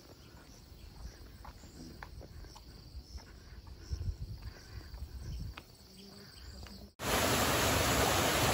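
Faint steady buzzing of insects over a low rumble, with a few light clicks. About seven seconds in, it switches abruptly to the loud, even rushing of a small waterfall splashing over rocks into a pool.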